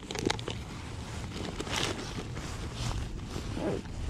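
Clicks of a clear plastic tackle box being handled and shut near the start, then intermittent rustling of a nylon tackle bag as gear is rummaged through.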